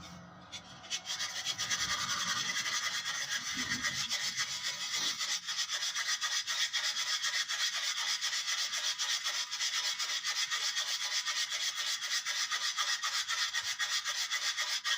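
A replacement brake pad being rasped down by hand to a marked line, in rapid back-and-forth strokes of about five a second, to fit it to the caliper. The rasping starts about a second in and stops abruptly near the end.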